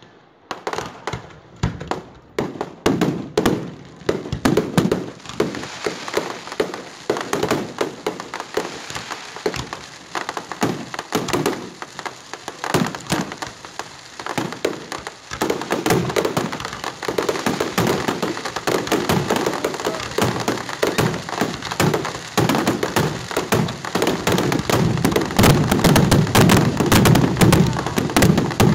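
Fireworks display: a dense, rapid barrage of shell bursts, bangs and crackling, many overlapping. It builds louder about halfway through and is loudest near the end.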